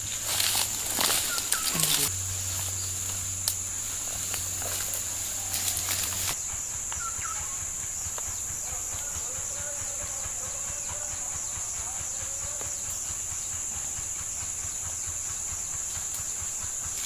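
Steady high-pitched insect drone from the surrounding scrub, with rustling of brush and leaves that stops about six seconds in, and a few faint bird chirps.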